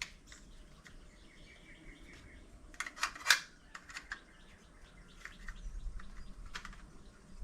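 Scattered light clicks and taps of a gauge and its plastic mounting being handled and fitted, with a short cluster of sharper clicks about three seconds in. A faint, thin high chirp sounds for about a second before the clicks.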